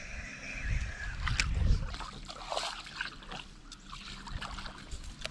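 Water splashing and lapping around a fishing kayak as it drifts on a river, with low thumps and scattered knocks from about a second in.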